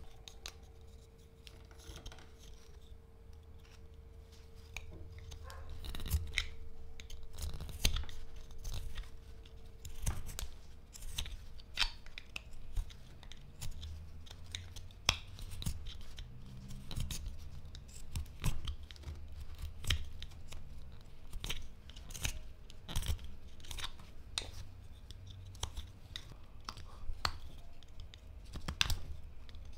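Carving knife slicing and shaving hard black locust (Robinia) wood in short, irregular strokes, each cut a crisp scrape. The cuts are sparse for the first few seconds and then come thick and fast, with some handling thumps.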